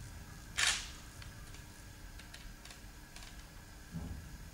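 Sparse faint clicks and ticks, with one short burst of hissing noise under a second in and a soft low thump near the end.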